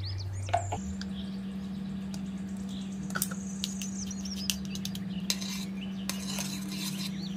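A metal spoon clinks and scrapes in a wire-mesh sieve and against the rim of a saucepan while flour slurry is pushed through into coconut-milk sauce, with scattered sharp clicks in the middle stretch. A steady low hum sets in about a second in.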